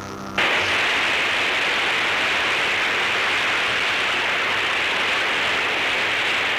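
Music cuts off abruptly about half a second in, giving way to a loud, steady rushing hiss that holds at an even level.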